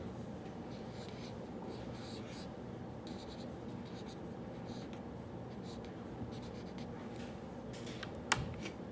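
Writing on paper: short scratching strokes in irregular runs, over a steady low room hum. A single sharp click near the end.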